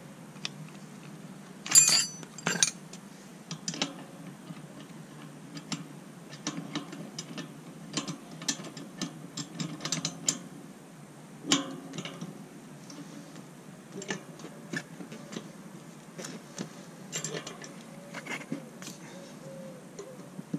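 Irregular metallic clicks and ticks of a tool and parts being handled while pedals are threaded onto unicycle cranks. The loudest are two sharp clicks about two seconds in and another about halfway through.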